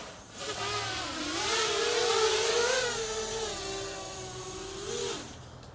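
Diatone Blade 250 quadcopter's four Multistar Elite 2204 2300 kV brushless motors and propellers whining in flight, the pitch rising and falling with the throttle. Near the end the whine drops in pitch and stops as the motors spool down.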